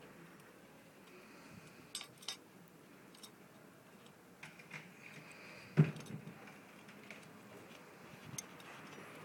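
Light clicks and taps of small metal parts being handled while fitting a small cover on a motorcycle brake caliper, with one sharper knock about six seconds in.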